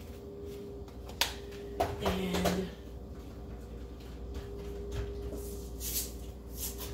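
Kitchen handling noises at the stove: a couple of sharp clicks, a short louder rattle a couple of seconds in, and brief rasping bursts near the end, over a steady faint hum.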